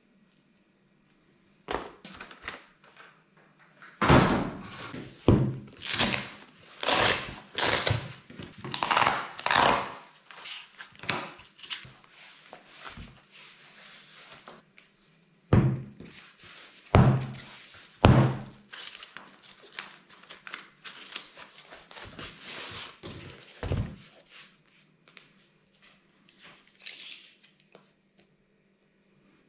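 Handling noise from a folding fabric solar panel and its accessories on a cutting mat: a string of thunks and rustles as the panel is unfolded and laid out. The loudest knocks are between about four and ten seconds in and again around fifteen to eighteen seconds, with quieter handling near the end.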